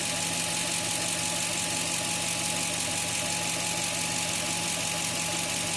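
A 2000 Toyota Tundra's 4.7-litre V8 idling steadily, with a constant high hiss over the engine note.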